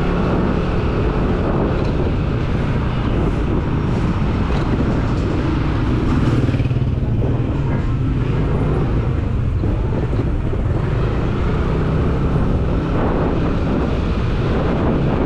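Yamaha scooter's engine running steadily at low road speed as it is ridden along a town street, heard from a helmet camera, with a mix of surrounding traffic.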